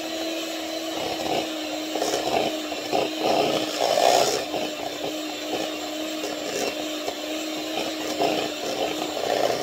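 Electric hand mixer running at a steady pitch, its beaters churning thick muffin batter in a bowl, with irregular scrapes and knocks as they hit the bowl.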